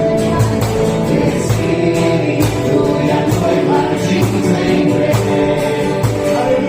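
Gospel song sung by a group of voices with band accompaniment and a steady beat.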